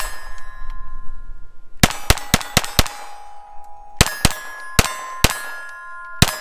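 A Taurus TX22 .22 LR pistol firing Aguila ammunition: one shot, then two quick strings of five, and one more near the end, each shot followed by steel targets ringing. The pistol keeps cycling without a stoppage.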